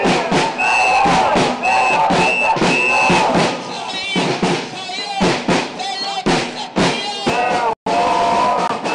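Crowd of protesters chanting together in rhythm over frequent drumbeats, with short high-pitched tones between the chants. The sound drops out briefly about eight seconds in.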